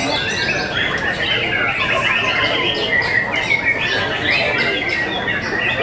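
White-rumped shamas (murai batu) singing: dense, overlapping runs of quick whistles, chirps and harsh notes, several birds at once.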